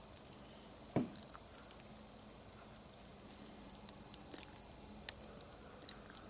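Wood campfire crackling faintly, with scattered small pops and one louder crack about a second in, over a faint steady high-pitched hum.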